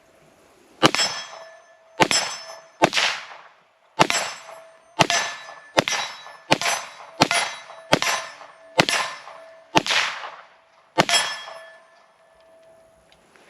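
A string of about a dozen pistol shots from a CZ 75 TS Czechmate, fired at a steady but uneven pace less than a second apart. Each shot is followed by the clanging ring of a steel target being hit. The shooting stops about two seconds before the end.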